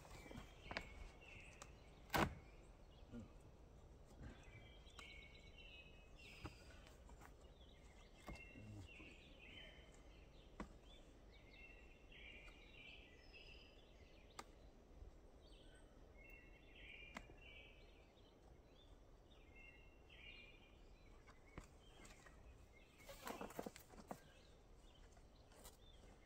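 Faint outdoor ambience with birds chirping throughout, broken by the clicks and knocks of the camper's awning being handled: one sharp knock about two seconds in and a cluster of rattling clicks near the end.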